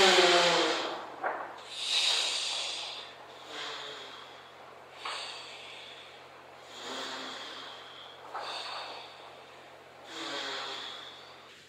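A person breathing hard: forceful, noisy snorts and exhales about every one and a half to two seconds, loudest at first and fading.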